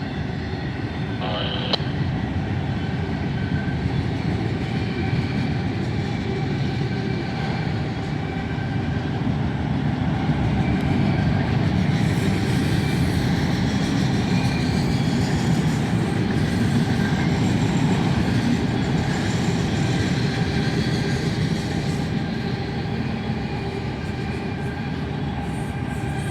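Freight train of autorack cars rolling past: a steady rumble of wheels on rail with faint steady ringing tones.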